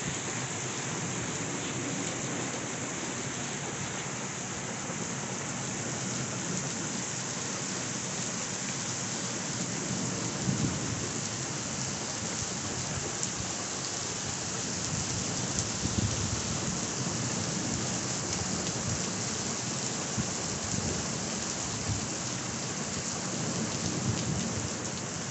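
Heavy thunderstorm downpour: rain pouring steadily onto pavement, with thunder rumbling low underneath. A couple of short, louder thumps come about ten and sixteen seconds in.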